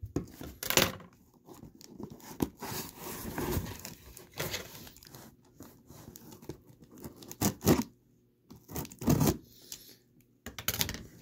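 Scissor blade slitting clear packing tape along the seam of a cardboard box: tape tearing and cardboard scraping in irregular strokes, with a few sharper, louder rips.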